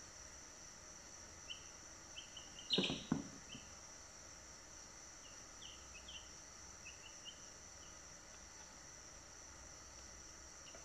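Ten-day-old Brahman chicks peeping softly in scattered short cheeps, with a louder flurry and a brief knock about three seconds in, over a steady high hiss.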